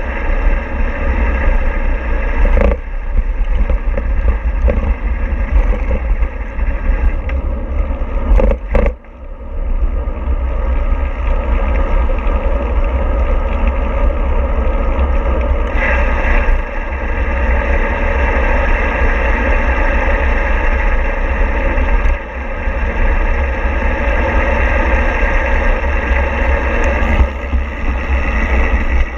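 Steady road and wind rumble from a moving vehicle, with a few brief knocks and a short drop in level about nine seconds in.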